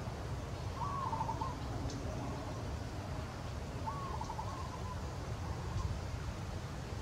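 Two short, high animal calls about three seconds apart, each dropping slightly in pitch and then wavering, over a steady low rumble.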